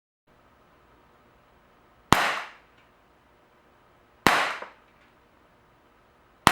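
ASG CZ 75 P-07 Duty CO2 blowback air pistol firing .177 steel BBs: three sharp shots about two seconds apart, the last right at the end, each with a short fading tail.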